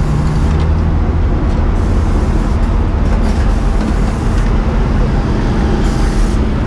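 Fire truck's engine running steadily to power its aerial ladder: a loud, even low drone.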